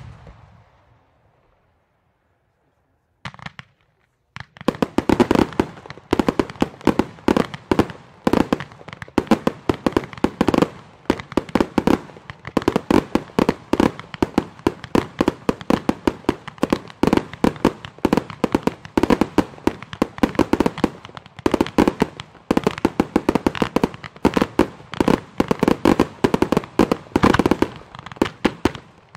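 Professional display fireworks: the tail of one bang dies away, and after a pause of about four seconds rapid-fire batteries start, sending up and bursting shells in a dense, unbroken barrage of sharp reports, many a second, for the rest of the time.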